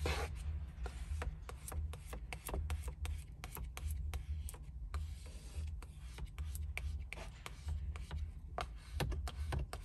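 Small plastic squeegee rubbing across a wet, soapy paint-protection film laid over a car's 12-inch touchscreen, in many short, irregular strokes that work the solution out from under the film. A steady low hum runs underneath.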